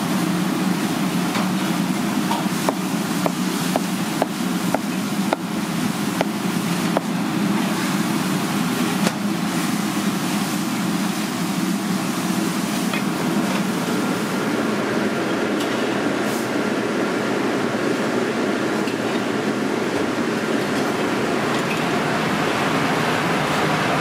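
Cleaver chopping a peeled gourd on a wooden cutting board: a scatter of short knocks in roughly the first nine seconds, over the steady loud roar of a commercial kitchen.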